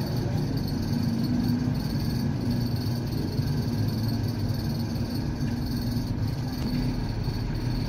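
A steady low rumble of background noise with no distinct events.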